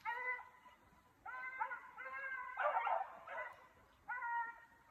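Hunting hounds baying on a hare's track: a run of about six short, rising-and-falling howled barks, with a louder, rougher burst about halfway through.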